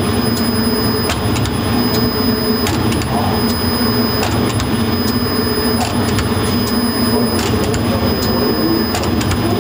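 Barbari bread production line running: a steady machine rumble and rattle as the conveyor carries dough rounds under the ridge-marking arms. A thin high whine runs throughout, with light irregular clicks.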